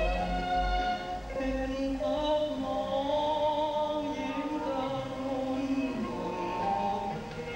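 Slow music: a melody of long held notes that bend and slide, over a quieter accompaniment, with a low hum in about the first second.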